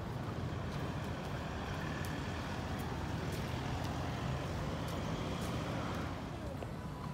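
Road traffic: a motor vehicle's engine runs with a steady low rumble as it goes by, easing off about six seconds in.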